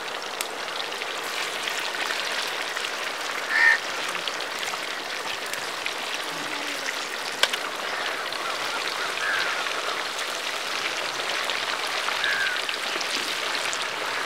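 Chicken pieces deep-frying in a large pan of hot oil: a steady sizzle, with a few clicks from the slotted spoon. A few short bird calls cut through, the loudest about four seconds in.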